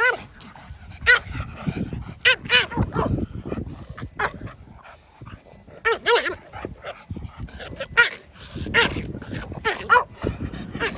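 Dogs barking and yelping in short, sharp, high calls that come irregularly, often in quick pairs, as in a dog fight.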